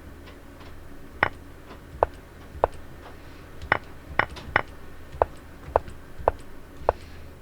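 Irregular series of about ten short, sharp clicks as the moves of an online chess game are stepped through in review, over a steady low hum.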